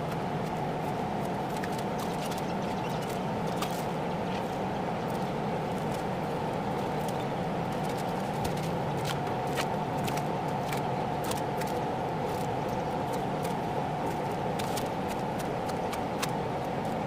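Steady droning background noise with many scattered light clicks and taps.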